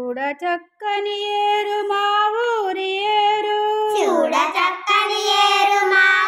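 A child singing in long, drawn-out held notes. There is a short break under a second in and a swoop down and back up in pitch about four seconds in.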